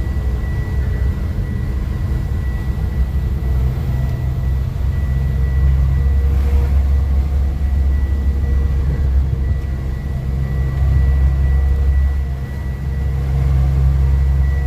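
Engine of heavy road-paving machinery running steadily, a low hum that swells and eases every few seconds, with a thin steady high whine over it.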